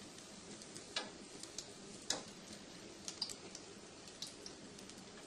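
Spinach-leaf pakoras deep-frying in hot oil: a faint steady sizzle broken by a few sharp ticks and crackles, the loudest about two seconds in.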